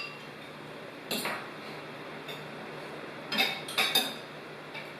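Cutlery clinking against plates and dishes during a meal: a light clink about a second in, then a quick cluster of several clinks around three to four seconds.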